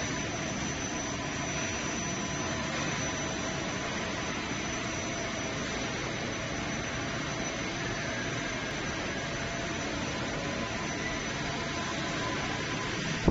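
Steady hum and hiss of running industrial bakery production-line machinery, with a few faint steady whines over the noise.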